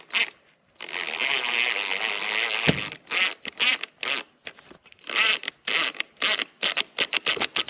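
Power drill driving a screw through an improvised metal-band washer into the wall: one whining run of about two seconds, a sharp knock, then a string of short trigger bursts.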